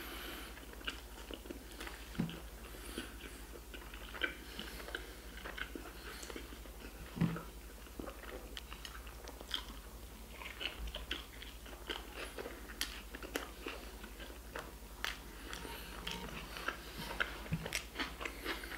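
A man biting into and chewing a large burger close to the microphone: many short mouth clicks and chewing sounds, scattered irregularly, with a slightly louder one about seven seconds in.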